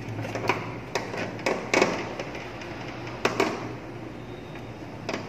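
Screwdriver and gloved hands working on contactor terminals in a motor control panel: a string of sharp clicks and knocks, loudest a little under two seconds in and again just after three seconds, over a steady low hum.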